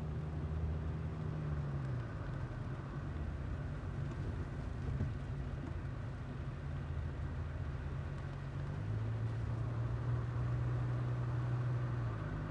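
Saab 900's engine and road noise heard from inside the cabin while driving: a steady low hum that drops in pitch about two seconds in and again around nine seconds.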